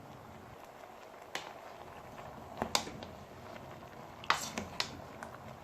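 A handful of sharp, irregular clicks and knocks against a cooking pot as unripe plantain is added to the pot, over a low steady background.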